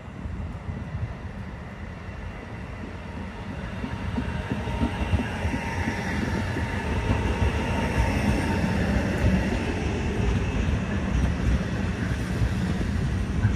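A train rolling past, a steady rumble that grows louder about four seconds in and then holds.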